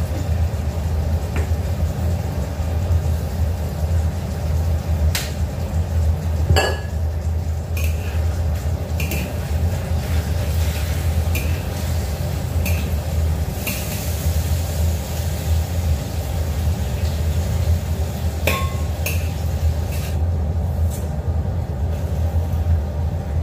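Metal spatula clinking and scraping against a wok while pieces of tofu are turned in hot oil, in scattered sharp strikes, over a steady low hum.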